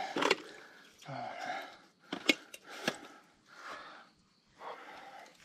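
Heavy, ragged breathing of a worn-out cyclist, about four loud breaths, with a few sharp clicks, the strongest a little over two seconds in.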